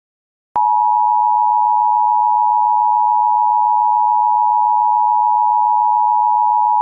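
Emergency Alert System attention signal: a loud, steady two-note electronic tone, starting with a click about half a second in after a short silence, announcing the next alert.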